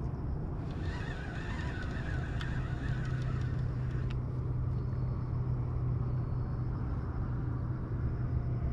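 Spinning reel being cranked to retrieve the line, its gears whirring for the first few seconds and again near the end, over a steady low hum.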